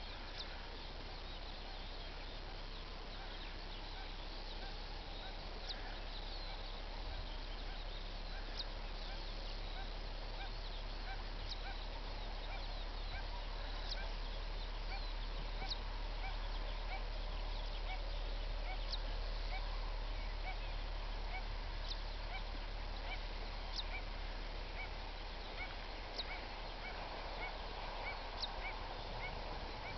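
Outdoor ambience: many birds giving short, repeated calls over a low, steady rumble.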